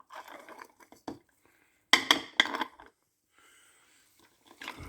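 Small metal parts clicking and clattering as a removed timing chain tensioner is handled and taken apart by hand, with the loudest clatter about two seconds in.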